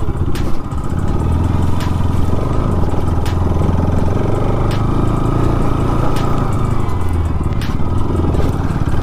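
Bajaj Pulsar RS 200's single-cylinder engine and exhaust while being ridden, a steady low drone that holds even throughout. Short sharp clicks come every second or so over it.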